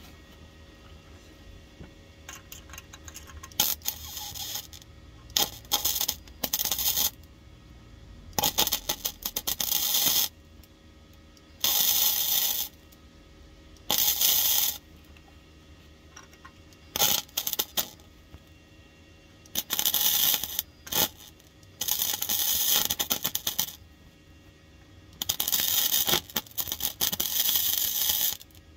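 MIG welder arc crackling in about ten short bursts, each half a second to two and a half seconds long with brief pauses between: short stitch welds being laid on a car's steel rear floor pan.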